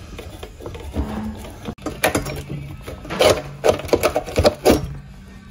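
Hand work on an old copper water pipe: a run of short, sharp scraping and knocking noises, several a second, starting about two seconds in and stopping near the end.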